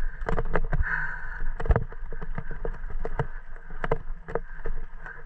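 Mountain bike rattling down a rough dirt trail: irregular clicks and knocks from the bike jolting over bumps, over tyre noise on loose dirt and a low wind rumble.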